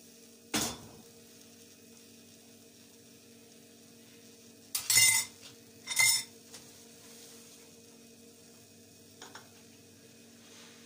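Kitchenware clinking and knocking: a short knock just after the start, two louder metal clinks about five and six seconds in, and a faint tap near the end. A steady low hum runs underneath.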